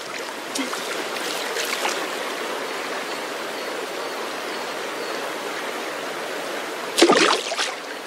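Steady rush of a mountain stream flowing over rocks, with a short, louder splash about seven seconds in.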